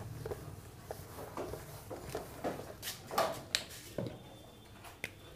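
Cloth wiping a whiteboard in short rubbing strokes, followed by a few sharp clicks and knocks near the end.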